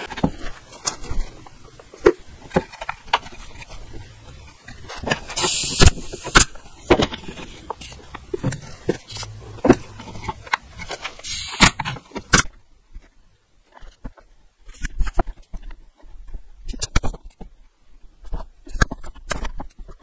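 An 18-gauge brad nailer firing two sharp shots, about 5 and 11 seconds in, each with a short hiss, the first the loudest. Small wooden pieces click and knock as they are handled and set on the bench.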